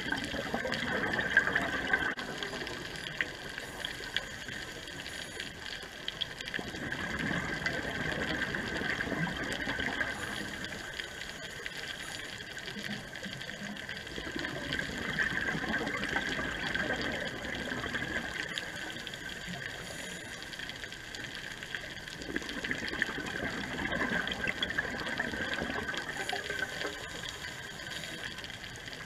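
Scuba diver breathing underwater through a regulator: exhaled bubbles rushing and gurgling in slow swells several seconds apart, over a steady underwater hiss.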